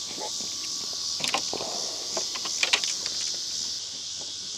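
Steady high-pitched insect chorus. A few short clicks and knocks from handling gear come about a second in and again near the middle.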